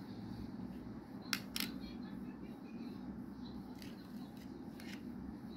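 Loose cut zircon gemstones being handled and set on the metal pan of a pocket digital scale: a few sharp small clicks, the loudest pair about a second and a half in, over a steady low hum.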